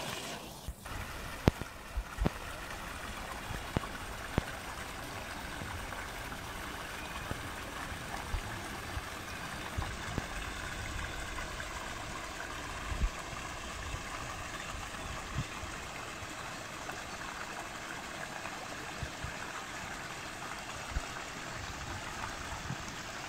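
Steady rush of flowing water in a shallow sturgeon pool, with a few short low knocks, most of them in the first few seconds.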